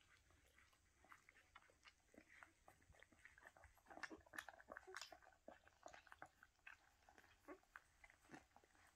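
Newborn whippet puppies suckling at their mother while an adult whippet licks them: faint, quick wet smacking and licking clicks, busiest about halfway through.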